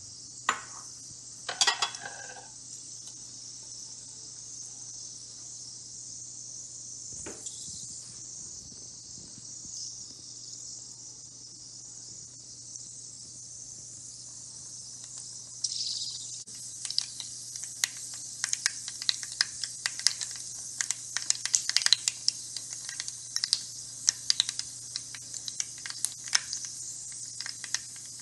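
Mustard and fenugreek seeds heating in hot coconut oil in a frying pan: the oil sizzles steadily with a high hiss. From about halfway the mustard seeds start popping, sharp crackling pops that come thicker and faster toward the end.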